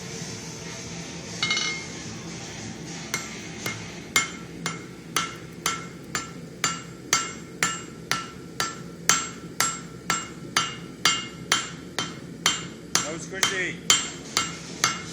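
Hammer blows on a hot damascus billet of 1095 and 15N20 steel on an anvil, setting its first forge weld. After a few scattered hits, a regular run of strikes at about two a second, each with a short metallic ring, over a steady low roar.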